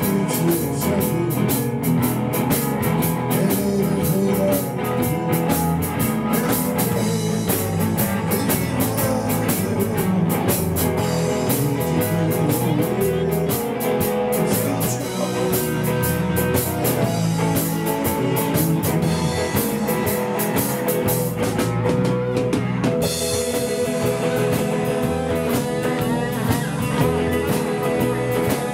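Live rock band playing: two electric guitars, one of them a hollow-body with f-holes, over electric bass and a drum kit with cymbals.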